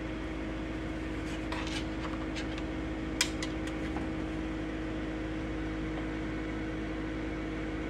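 Ninja countertop air fryer oven running with a steady, even hum from its fan. A few light ticks sound over it, the sharpest about three seconds in.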